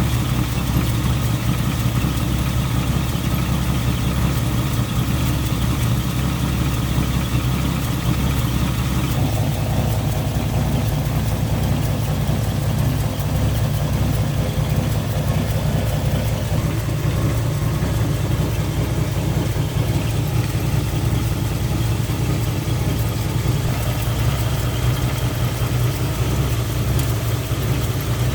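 Jeep Wrangler YJ engine idling steadily, warming up so the automatic transmission fluid level can be checked; its low note steps up slightly about nine seconds in.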